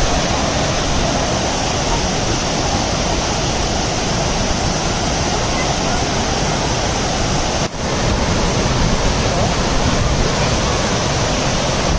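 Waterfall's falling water rushing steadily and loudly, with a momentary dip in level about eight seconds in.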